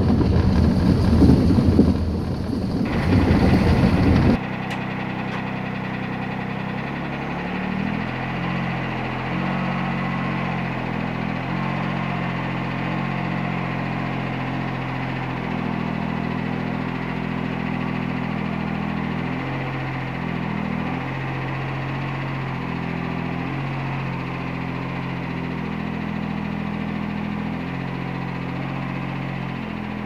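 Road and wind noise inside a small car's cabin while it tows a trailer at about 20 mph. About four seconds in this gives way to a utility vehicle's engine running steadily at low speed, its pitch shifting a little now and then as it moves up to the sawmill.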